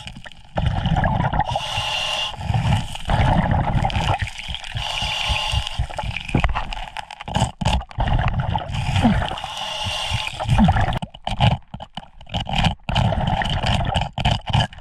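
Scuba diver breathing through a regulator underwater, heard through the camera housing: a hissing intake every few seconds alternates with the rumbling gurgle of exhaled bubbles.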